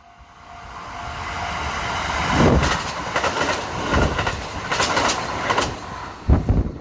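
Kintetsu Osaka Line train running over rail joints. A wheel-on-rail rumble builds over the first two seconds, then comes a run of sharp clacks as each wheelset strikes the joints, with a loud double clack near the end.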